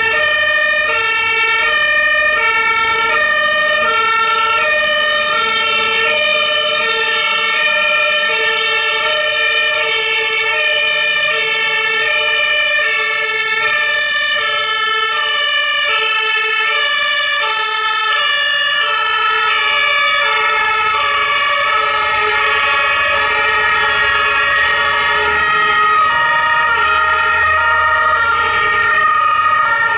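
German two-tone emergency vehicle sirens (Martinshorn) alternating between a high and a low note, with more than one horn sounding at once out of step with each other. Vehicle engines rumble underneath as the vehicles drive by.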